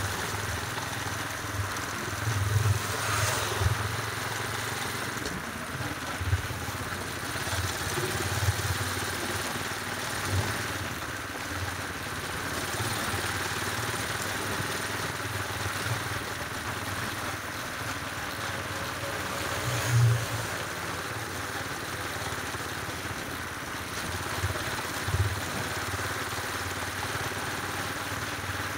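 Motorcycle running on the move, with wind buffeting the microphone in irregular low thumps over a steady rushing noise.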